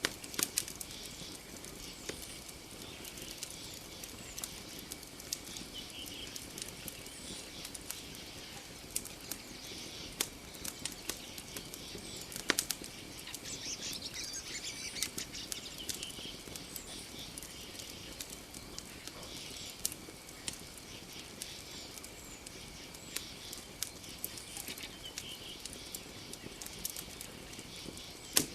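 Campfire crackling, with irregular sharp pops and snaps, the loudest about halfway through. A steady high-pitched tone runs underneath.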